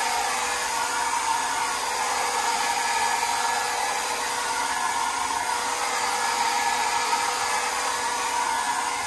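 Handheld hair dryer running steadily: a constant rush of air with a faint steady motor hum. It is blowing warm air on the adhesive backing of a rubber shower curb dam to activate the glue.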